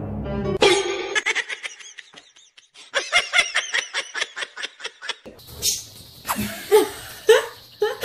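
A person laughing, with a rapid run of short ha-ha pulses for about two seconds near the middle and scattered laughs around it.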